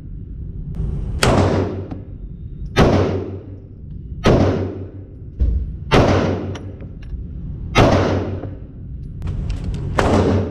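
Handgun fired six times at a slow, steady pace, a shot about every one and a half to two seconds, each with a short ringing tail, over a steady low rumble.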